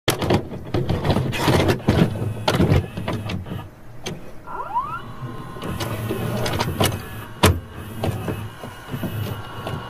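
VHS tape playback noise: crackling static and irregular clicks over a low hum, with a brief rising whine about four and a half seconds in.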